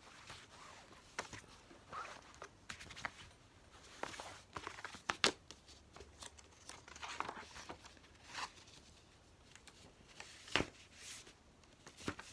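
Paper and cardboard being handled: a booklet and cards shuffled and a cardboard album box and tray lifted and set down, with soft rustles and scattered light taps, the sharpest about 5 s and 10.5 s in.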